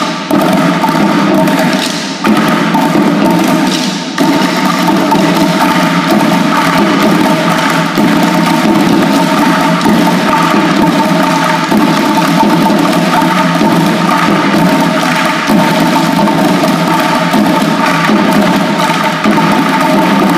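A group of children drumming with sticks on upturned plastic buckets, a dense, continuous rhythm with a few brief breaks in the first few seconds.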